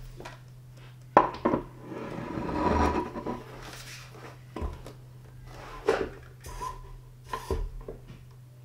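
Office chair being assembled: the seat mechanism is fitted down onto the gas-lift cylinder in the five-star base and pressed into place. A sharp knock about a second in, a stretch of rubbing and scraping after it, and then a few lighter knocks and creaks as the seat is pushed and sat on.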